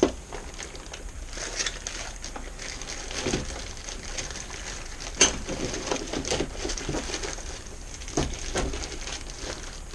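Plastic Ziploc bags rustling and tools knocking as a tool kit is squeezed into a motorcycle's under-seat storage compartment, with a few sharp clicks.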